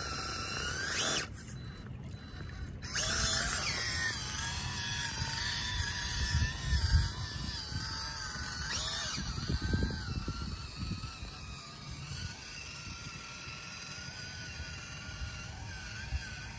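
Small electric motor and geartrain of an FMS FCX18 K10 1/18-scale RC crawler whining, the pitch rising and falling with the throttle. The whine cuts out briefly about a second in, and there are a few low thumps.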